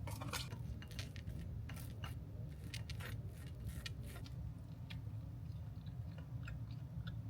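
A knife clicking and scraping against a plate and bread while butter is spread on a slice of sourdough, in scattered short strokes that thin out about halfway through. A steady low hum runs underneath.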